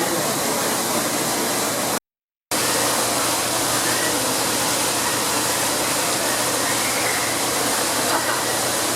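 Steady rush of falling water, an even hiss with no rhythm. It cuts out completely for about half a second around two seconds in.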